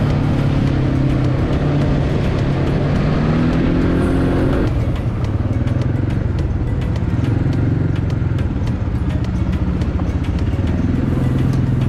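Quad bike (ATV) engines running, with one revving up about three seconds in and dropping back abruptly just under five seconds in.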